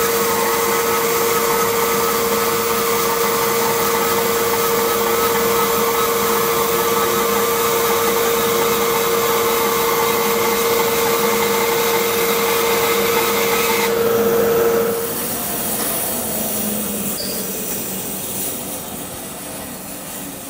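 A 3-horsepower bandsaw fitted with a wide carbide-tipped resaw blade runs steadily, cutting a wide board lengthwise into two thinner boards, with a dust collector running alongside. About fourteen seconds in, the steady whine stops sharply and the remaining machine noise then fades away gradually.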